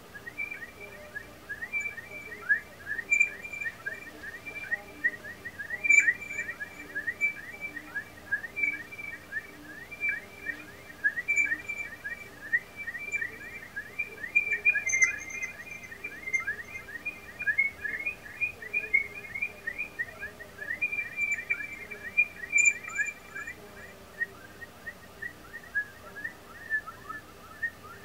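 Korg MicroKorg synthesizer playing a bird-like patch: a dense stream of quick, high chirps, several a second, over a faint steady hum. Near the end the chirps thin out and drop a little lower.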